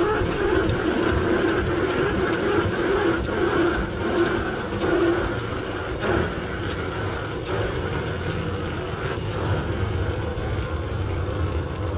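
Wheels of a summer toboggan sled rolling down a stainless-steel trough: a steady rumble with occasional short clicks, easing after about five seconds as the sled slows toward the end of the run.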